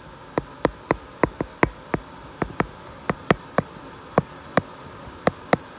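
A stylus tip tapping on an iPad's glass screen while handwriting. It gives sharp, irregular clicks at about three a second as each stroke starts and ends.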